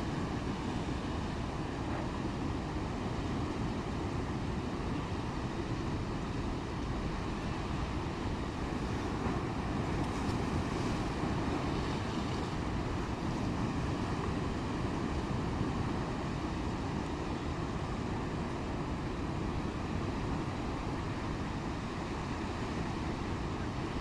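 Steady low rumble of wind and a rough, heaving sea.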